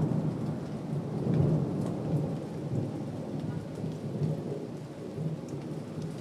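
Rolling thunder, a low rumble that swells at the start and again about a second and a half in, then slowly dies away.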